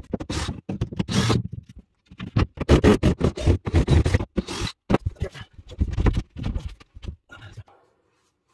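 Irregular scraping and knocking of hands and objects on wooden floorboards, stopping a second before the end.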